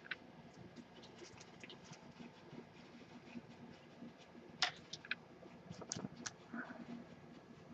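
Faint clicks and taps of cards in hard plastic holders being handled and set down on a table, with a few sharper clicks past the middle.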